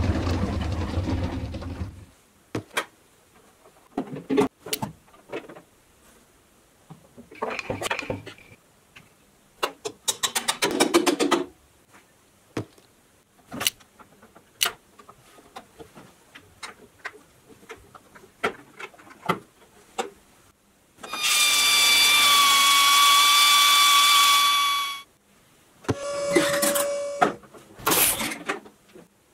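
Plastic parts of a ride-on toy excavator being handled and fitted together by hand: scattered clicks and knocks, a quick rattling run of even ticks, and a low rumble at the start. Past the middle comes a steady whine lasting about four seconds, then a shorter tone.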